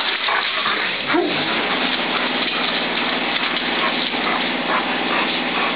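Loud rushing and rubbing noise from dogs pressing and brushing against the phone's microphone. A steady low hum sets in about a second and a half in.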